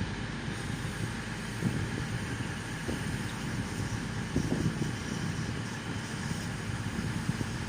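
Trains at a railway station platform: a steady low rumble and hum of train engines and traction equipment.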